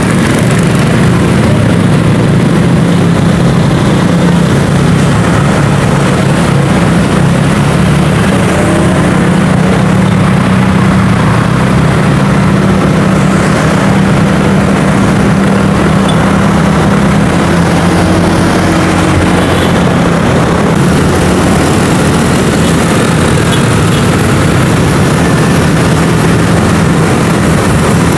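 Motor scooter engine running at a steady, even pitch while riding slowly in traffic, over a constant rush of road and wind noise.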